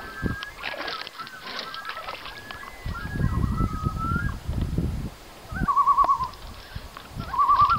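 A bird calling repeatedly: several gliding calls, then short wavering, trilled calls of under a second each, twice near the end, over a low rumble of wind or water.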